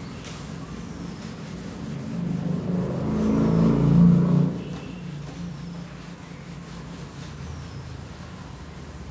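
A whiteboard being wiped with a duster: steady rubbing strokes across the board. About two seconds in, a louder low rumble swells up, peaks, and drops away quickly before the five-second mark.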